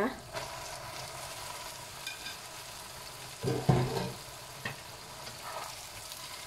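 Wet yellow noodles sizzling in a hot wok of oil, a steady frying hiss. About three and a half seconds in, a short burst of knocking and scraping as a spatula turns the noodles.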